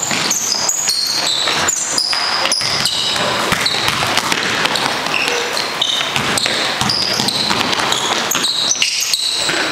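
Basketball game on a gym floor: the ball bounces in repeated sharp thuds as it is dribbled, and many short high sneaker squeaks come from players running and cutting on the court.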